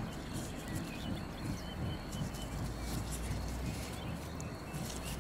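Soft crinkling of a PVA bag being knotted by hand, over a low, unsteady wind rumble, with a bird chirping faintly several times about a third of the way in.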